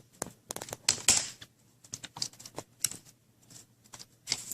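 Plastic front bezel of a laptop screen being pried off by hand, its snap-in clips releasing in an irregular string of sharp clicks and cracks, with a louder burst about a second in and another near the end.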